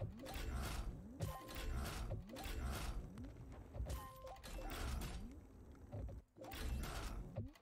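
Money Train 4 online slot's game sound effects during bonus respins. Mechanical clunks and whirs repeat about once a second as the reels spin and symbols land. A few short tones mark the landings.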